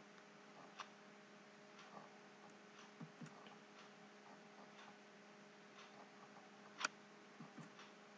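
Near silence: a few faint, irregularly spaced clicks, the clearest near the end, over a faint steady hum.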